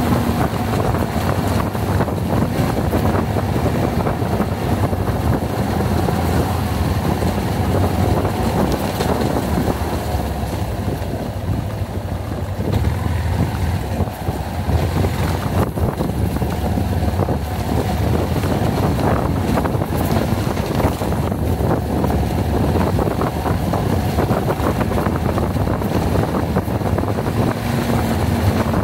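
Yamaha XG250's single-cylinder engine running steadily while the motorcycle is ridden, with wind buffeting the microphone.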